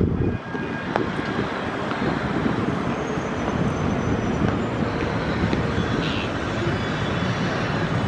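Steady outdoor city background noise, mostly a low rumble, with no distinct bird calls standing out.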